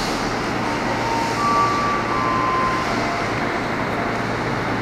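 Steady hum and rush of a KRL Commuterline electric train standing at the platform with its doors open, with a few faint, brief high tones now and then.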